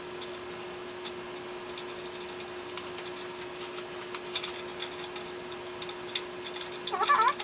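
Scattered light clicks and taps of bicycle parts and tools being handled during assembly, over a steady hum. Near the end a cat meows briefly.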